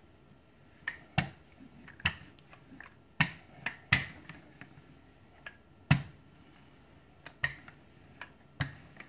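Wooden rolling pin working dumpling dough on a floured granite countertop: sharp clicks and knocks at irregular intervals, roughly one a second, as the pin is pushed back and forth.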